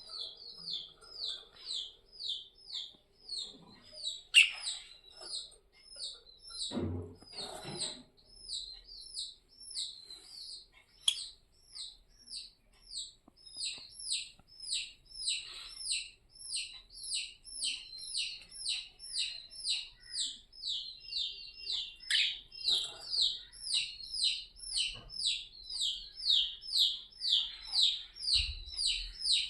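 A small bird calling over and over: short high chirps that fall in pitch, about two a second, keeping up a steady rhythm. There is a sharper click about four seconds in and a couple of soft low thumps a few seconds later.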